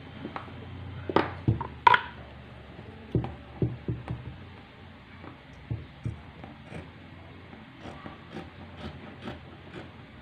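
Tailor's chalk and hands knocking and rubbing on a t-shirt laid on a wooden table: a handful of sharp knocks in the first few seconds, the loudest about two seconds in, then fainter scattered ticks.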